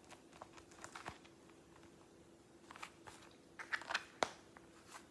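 Soft rustling and light clicks of a fabric-and-leather checkbook wallet being handled and opened, in a few short clusters, over a faint steady hum.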